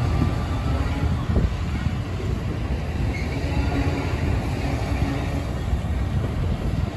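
Amtrak Superliner bilevel passenger cars rolling past close by: a steady rumble of steel wheels on rail, with a sharp clack about a second and a half in.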